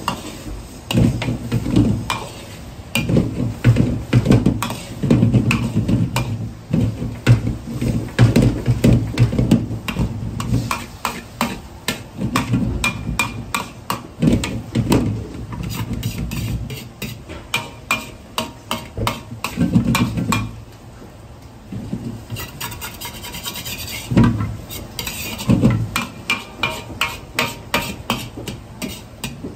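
Metal Chinese ladle scraping and knocking against a carbon-steel wok as a big batch of egg is stirred and folded, in quick runs of strokes with a short lull about two-thirds of the way through.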